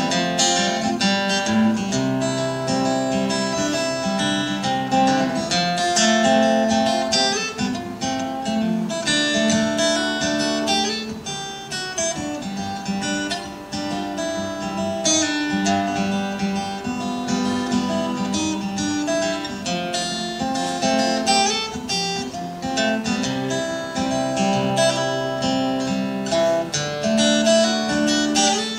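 Solo steel-string acoustic guitar playing an instrumental break of a song, plucked bass notes under a picked melody.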